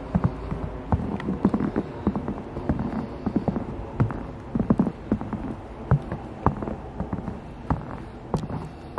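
Footsteps crunching in snow, a run of short uneven crunches at walking pace.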